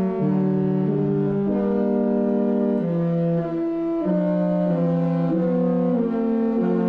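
The Disney Wish cruise ship's musical horn plays a tune in long held notes, several pitches sounding together in harmony and stepping from note to note.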